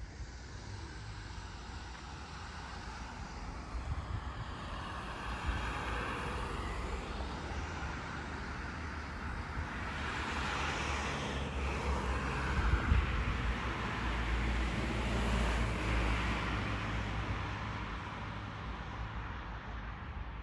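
Road traffic: cars passing on the street, with tyre and engine noise that swells and fades several times and is loudest a little past the middle.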